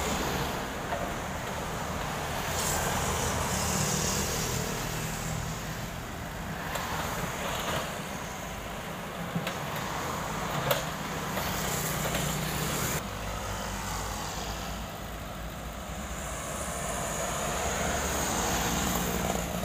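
Komatsu PC78US mini excavator's diesel engine running steadily under hydraulic load as it digs and swings a bucket of soil, with road traffic passing and two sharp knocks about halfway through.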